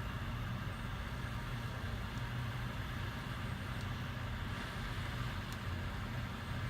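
Steady hum and hiss of a small fan or blower running without change.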